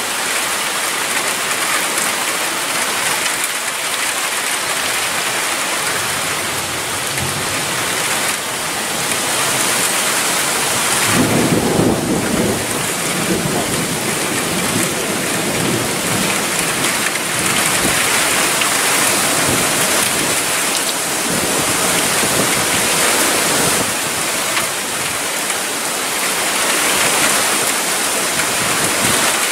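Heavy rain pouring steadily during a thunderstorm, with a deep roll of thunder rumbling in about eleven seconds in and fading over several seconds.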